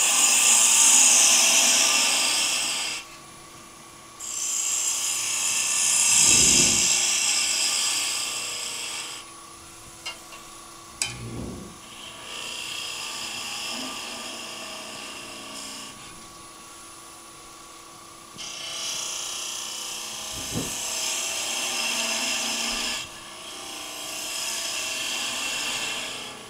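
Turning gouge cutting a spinning wooden finial on a lathe: about five hissing cutting passes, each a few seconds long, with short pauses between them as the bead and ogee are shaped, over the steady hum of the lathe. Two sharp clicks come a little before the middle.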